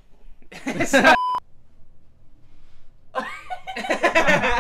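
Young men laughing in two bursts, each cut off by a short, steady electronic beep.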